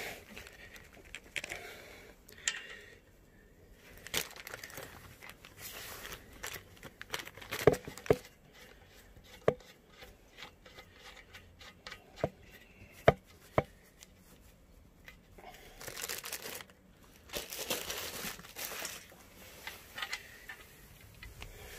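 Clear plastic hardware bag crinkling as it is handled, near the start and again from about sixteen seconds in. Between about eight and fourteen seconds in come half a dozen sharp clicks and knocks, the loudest sounds, as the fittings and steel stand tubes are handled.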